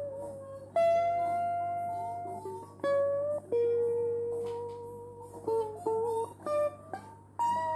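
Electric guitar played as a slow single-note line: long notes that ring and fade, some bent up in pitch, then a quicker run of short notes in the second half. A steady low hum sits underneath.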